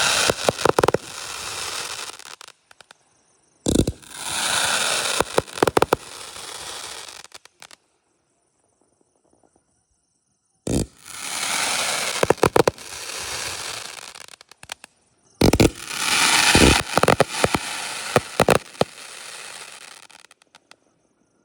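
Aerial shots from a consumer fireworks repeater cake, Mr. Big/Elephant Fireworks' Thunders of God. Three shots go off several seconds apart, each a sharp bang followed by a few seconds of hissing crackle with scattered pops as the effect breaks and fades.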